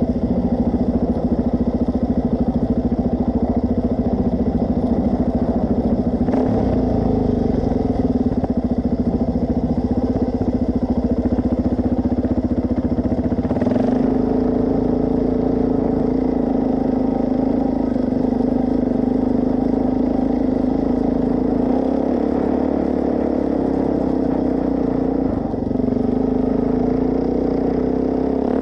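Suzuki DR-Z400S single-cylinder four-stroke engine running steadily, holding one even note, with small shifts in its sound about a quarter and halfway through.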